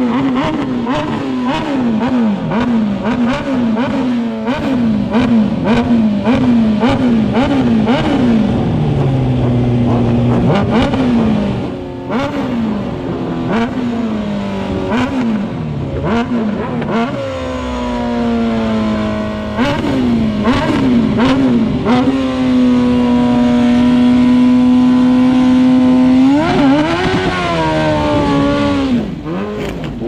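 Sport motorcycle engine revved hard in quick repeated blips, about one and a half a second, then run up and held high and steady for several seconds before dropping, as the rider spins the rear tyre in a burnout.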